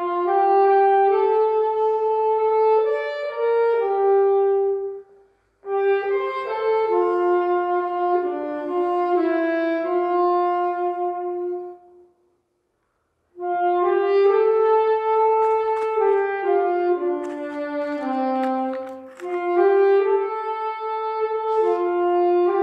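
Slow music on brass or wind instruments playing several parts at once, in phrases broken by short pauses. The longest pause, about a second, falls a little past the middle.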